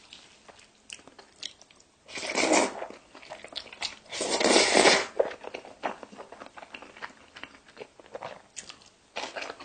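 Close-up eating sounds of a person eating carbonara buldak noodles: a run of small wet chewing clicks, with two louder noisy mouth sounds about two and four seconds in.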